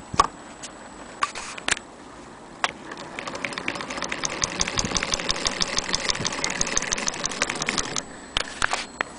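Antique James G. Weir hand-cranked sewing machine, c.1868, stitching fabric. A few separate clicks and knocks at first, then for about five seconds a fast, even clicking of the mechanism as the handwheel is turned. The clicking picks up gradually, stops suddenly, and is followed by a few more knocks.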